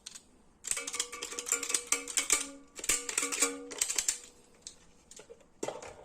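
Rapid scraping strokes on the metal battery contacts of an RC helicopter remote, with the contact springs ringing in a twangy tone under each stroke, as corrosion is scraped off. The scraping runs for about three seconds, then only a few light scratches follow.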